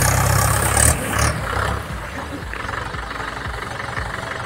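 Tractor engine idling, loudest in the first second and a half and then easing, with the crackling rustle of dry mustard stalks as someone climbs onto the stack.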